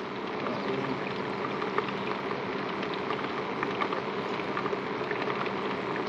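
Steady rushing hiss of river water flowing, with faint scattered ticks.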